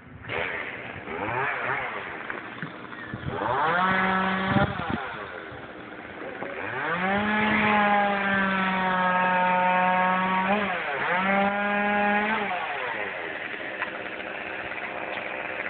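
Chainsaw up in the tree, revved briefly about four seconds in, then held at full speed through a long cut for about five seconds, with one brief dip in speed before it drops back to idle.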